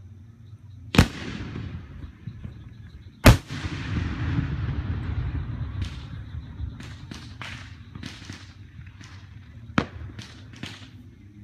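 Fireworks going off: two loud booms about two seconds apart, the second the loudest, each trailed by a rolling rumble. A quick run of smaller pops and crackles follows in the second half.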